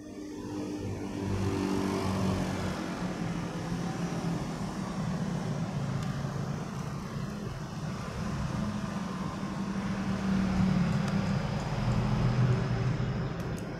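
Motor vehicle engines in road traffic running close by: a steady low engine hum that swells about a second in and again around ten seconds in.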